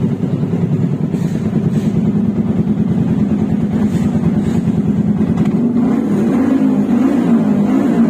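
Yamaha R15's single-cylinder engine idling through an aftermarket SC Project exhaust, a loud, steady exhaust note in an enclosed parking area. Its pitch wavers a little near the end.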